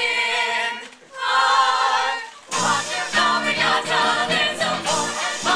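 Stage-musical singing: two long held sung notes, then about two and a half seconds in the ensemble comes in, singing over a musical accompaniment.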